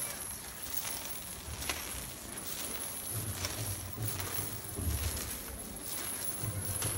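Iron chains dragged over cobblestones by barefoot penitents, clinking and scraping irregularly, with some low muffled bumps underneath.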